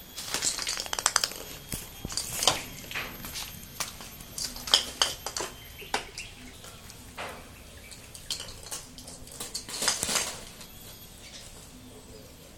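A kitten batting small objects around a tiled floor: irregular light clicks, clatters and scrapes, loudest about a second in, near five seconds and around ten seconds.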